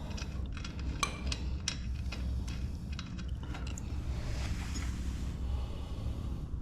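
Metal clinks and clicks of a nut and bolt being fitted to secure a new caster wheel on a rolling toolbox, with a short rasping stretch about four seconds in.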